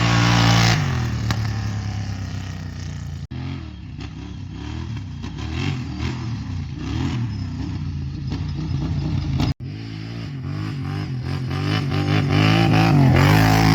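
Kawasaki Brute Force 750 ATV's V-twin engine through a full Muzzy exhaust, ridden. It is loud at first and drops off in revs about a second in, then rises and falls with the throttle, building to its loudest revs near the end. The sound cuts out briefly twice.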